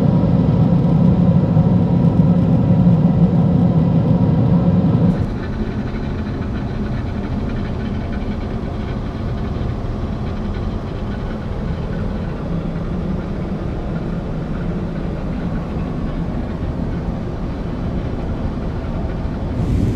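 Steady cabin noise of a Boeing 777-300ER in cruise: a constant low rush of airflow and engine. About five seconds in it drops to a quieter, duller steady hum inside the lavatory.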